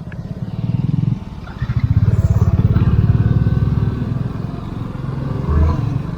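Motorcycle engine pulling away under throttle, its low pulsing note building, dropping briefly about a second in, then running harder for a couple of seconds before easing off.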